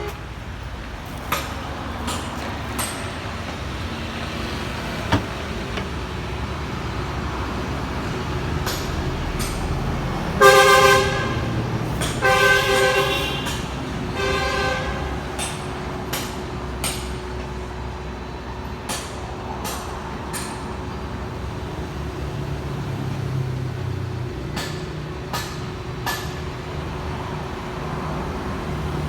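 Okuma radial drill press running with a steady mechanical hum and scattered light clicks, while a horn honks three short times around the middle.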